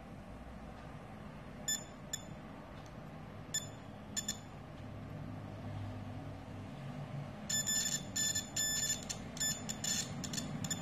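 SEW DT830D digital multimeter's continuity buzzer beeping as the probes touch a laptop motherboard capacitor. The beeps come as short, broken chirps: a few scattered ones, then a quick run of them near the end. A beep here means the capacitor is shorted, a 100% faulty capacitor.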